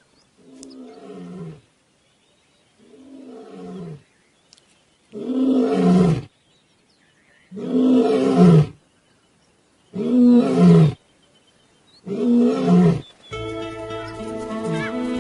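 Male lion roaring: six roars, each about a second long and falling in pitch, the first two softer than the four that follow. Music comes in near the end.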